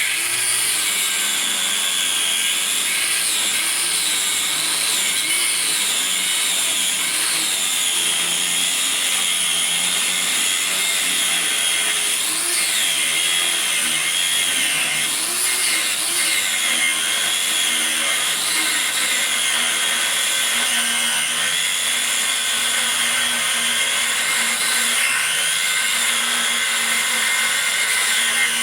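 Grinder with an abrasive cut-off wheel cutting through the steel van frame, running continuously. Its high whine dips in pitch again and again as the wheel bites into the metal under load, then recovers.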